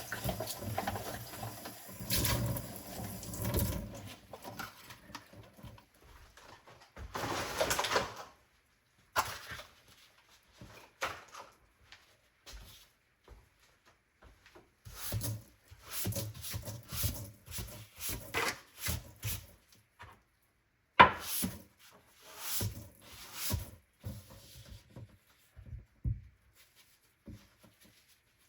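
Dishes and kitchenware being handled at a sink: irregular knocks, clinks and rubbing with quiet gaps between, and a noisier stretch of water or scrubbing in the first few seconds.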